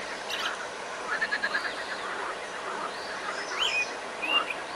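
Birds chirping over a steady outdoor background hiss: a quick run of notes about a second in, and a couple of short rising-and-falling calls near the end.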